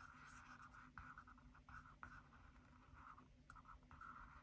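Felt-tip marker scribbling on paper, colouring in a circle: faint, in short strokes with brief pauses.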